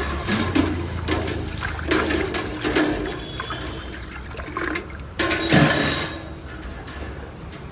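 Liquid gushing and splashing in irregular surges, over a steady low hum.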